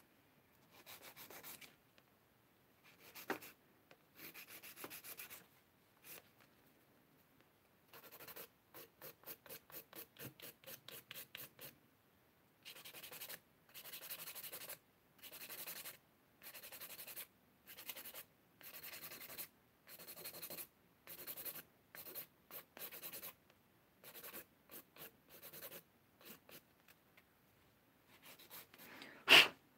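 Nail file scraping back and forth across acrylic nails in repeated strokes, short and quick in places, slower and longer in others. A single sharp knock near the end.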